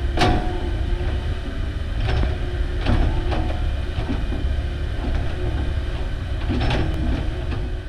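Komatsu hydraulic excavator's diesel engine running steadily under load while the bucket digs soil. Sharp clanks come from the bucket and boom linkage about three seconds in and near the end.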